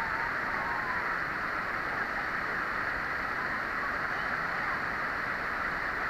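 Steady, even rush of a rocky river tumbling down a waterfall of several small drops, with white water splashing over the rocks close by.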